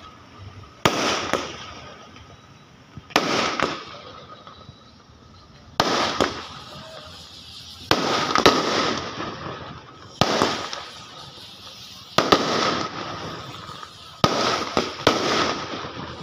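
Aerial firework shells bursting one after another, about every two seconds. Each is a sharp bang that trails off into a rolling echo.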